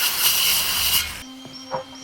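An electric power tool cutting wood runs loudly, then stops about a second in. A couple of light knocks follow near the end.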